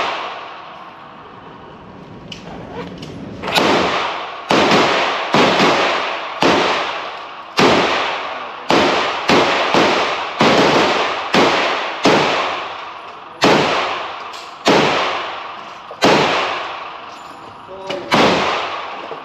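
A string of about sixteen gunshots, roughly one a second, each trailing off in a long echo. They start about three and a half seconds in, after one shot right at the start.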